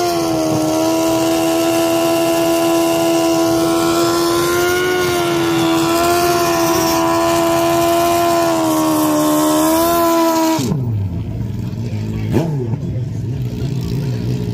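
Drag-racing sportbike engine held at high revs for about ten seconds, as in a burnout to heat the rear tyre. It then drops suddenly to a low, uneven idle, with one short rev blip a couple of seconds later.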